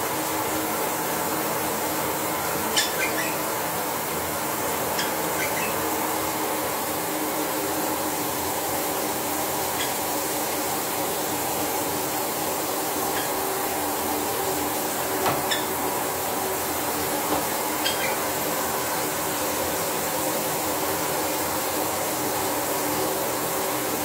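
Steady rushing hiss throughout, with a handful of brief, high chirps from small parrots.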